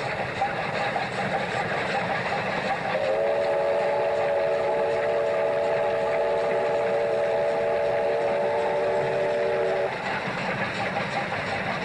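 Steam locomotive whistle giving one long steady blast of several notes sounding together, beginning about three seconds in and stopping near the end, over the steady running noise of a moving steam-hauled express train.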